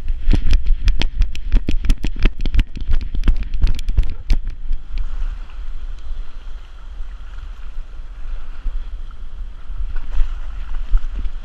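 A dog's running strides jolting a harness-mounted GoPro: a quick run of thumps, about five a second, over wind buffeting the microphone. About five seconds in the thumps stop and a steady wash of shallow seawater splashing around the dog's legs takes over.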